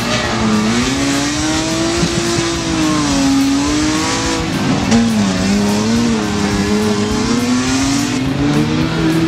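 Stock-car engines racing on a dirt track, their pitch repeatedly rising and falling as the drivers rev and lift through the corners, one car passing close by.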